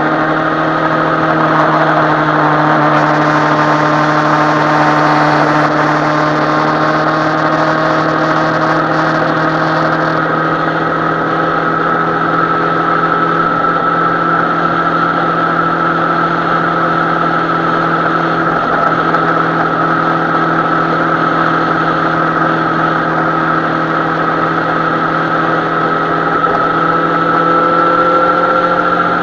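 Suzuki Bandit 650N's inline-four engine running at a steady cruise, its pitch holding nearly level with only slight drift. A hiss that sits over it eases about ten seconds in.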